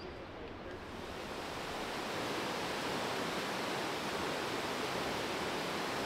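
Steady rush of flowing water, fading up over the first two seconds.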